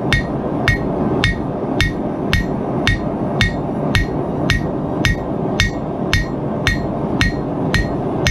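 Steady hammer blows on an anvil, about two a second, each with a short metallic ring, over a continuous rushing noise: the hot copper-and-nickel mokume gane billet being hammered to forge-weld its layers.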